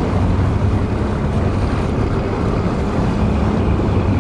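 A motorboat under way: its engine runs with a steady low drone while water rushes and splashes past the hull, and wind buffets the microphone.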